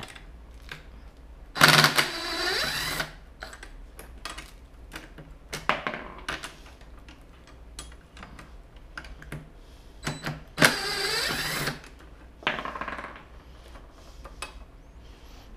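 Mac Tools ratchet wrench working a fastener on a mobility scooter's rear hub: two runs of rapid ratcheting, about a second and a half in and again about ten seconds in, with scattered clicks and knocks of tool on metal between.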